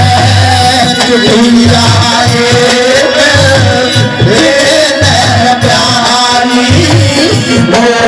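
Live Haryanvi ragni folk music: a male voice singing through a microphone over hand-drum beats and a melodic accompaniment.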